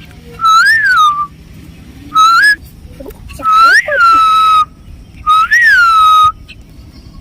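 Four loud whistles, each rising in pitch, dipping back and holding a steady note. The longest one comes about midway.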